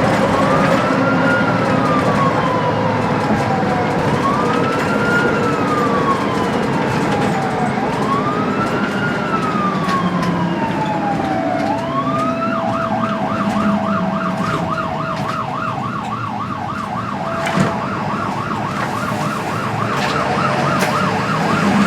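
Ambulance siren over engine and road noise, sounding a slow wail that rises and falls about every four seconds, then switching a little past halfway to a fast yelp of several cycles a second. A short knock sounds once near the end.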